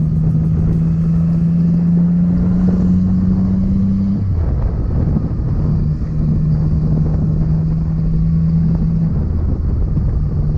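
Motorcycle engine running at road speed under wind and road noise. The engine note climbs slowly for about four seconds and then drops away. It comes back steady a couple of seconds later and dips briefly again near the end.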